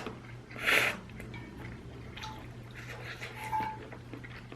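Close-miked eating sounds: a short burst of mouth noise about three-quarters of a second in, then faint wet clicks and smacks of chewing, over a steady low electrical hum.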